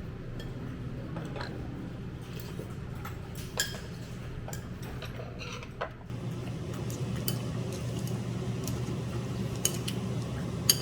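Chopsticks, spoons and dishes clinking now and then during a meal, over a steady low hum of room noise. The sharpest clinks come about a third of the way in and again near the end.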